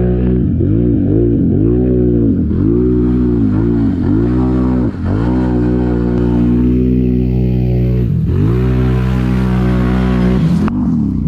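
ATV engine revving up and down in quick throttle bursts, then held at high revs, as the quad ploughs through deep muddy water with spray splashing over it.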